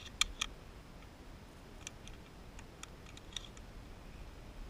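Faint, scattered clicks and crackles of movement through dry brush, a few sharper ones near the start, over a faint low rumble.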